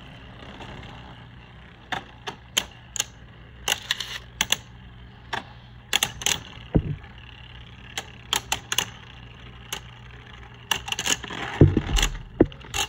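Two Beyblade Burst spinning tops battling in a plastic stadium: irregular sharp plastic clacks as they strike each other and the stadium walls, with a few heavier knocks near the end.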